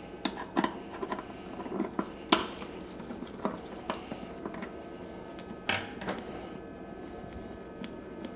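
Screwdriver working the screws of a portable generator's plastic air-filter cover: scattered small clicks, scrapes and knocks. The loudest knocks come about two seconds in and near six seconds, and the sounds thin out toward the end.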